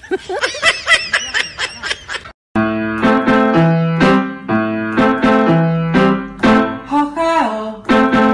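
A high, rapidly wavering pitched sound for about two seconds, then after a short break, background music: a bouncy keyboard tune with a steady beat.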